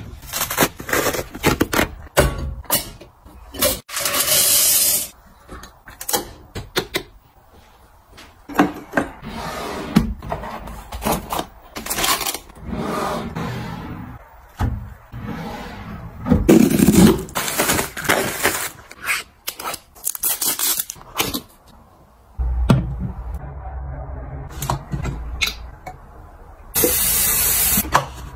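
A run of close-miked household handling sounds: clicks, knocks, rustles and scrapes as a paper towel roll is set on its stand, an under-sink pull-out drawer is slid, and a plastic soap dispenser is fitted together, with a few short bursts of hissing noise.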